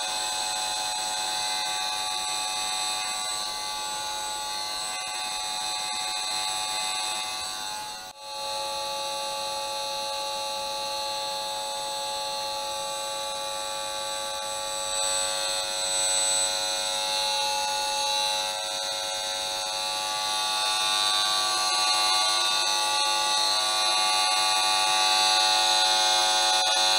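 Esmog Spion EMF meter's speaker giving a steady electric buzz of many stacked tones, its audible signal for the electric field it is picking up from the mesh-shielded monitor. It cuts out for a moment about eight seconds in, then grows louder over the last several seconds as the meter is held close to the monitor.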